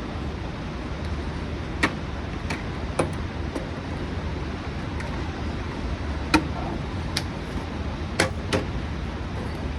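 Sharp clicks and knocks, about nine spread irregularly over several seconds, as gear is handled during unboxing, over a steady low rumble of wind.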